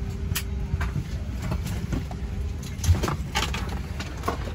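Steady low cabin hum of a parked Boeing 757-300 during boarding, with a faint steady tone that stops about three seconds in. A handful of short knocks and rustles ride over it, the loudest near three seconds in.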